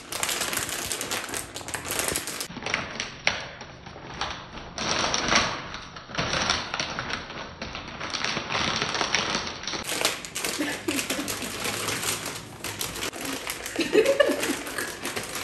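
Crinkly plastic snack bag being handled and pulled open, a dense, irregular run of crackles and rustles. A brief laugh comes in near the end.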